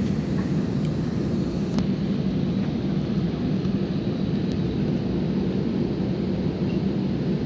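Steady low drone of an AirAsia airliner heard from inside the cabin on the ground before takeoff, with the engines and cabin air running. A couple of faint ticks sound over it.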